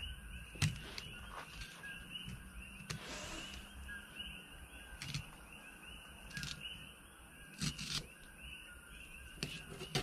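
Scattered clicks and a brief scrape of a fillet knife working through a barracuda on a plastic folding table. Under them runs a faint, steady night chorus of small chirping calls.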